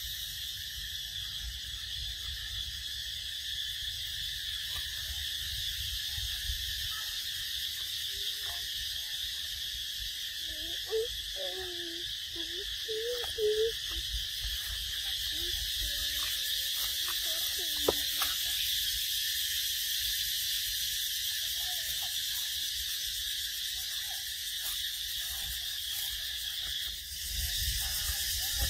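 A steady, high-pitched insect chorus droning throughout, with a few short wavering calls about eleven to fourteen seconds in.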